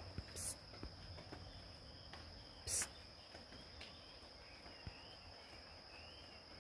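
Steady, faint high-pitched insect trill from outdoor insects such as crickets. Two brief noisy bursts break in, about half a second and about three seconds in; the second is louder.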